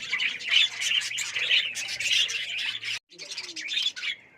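A cage full of lovebirds chattering, a dense stream of high chirps and squawks that breaks off for a moment about three seconds in.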